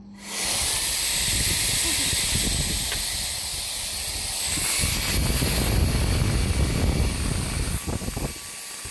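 20V cordless vacuum cleaner and blower switched on in blower mode: its motor runs with a steady rush of blown air and an uneven low rumble, which eases off a little near the end.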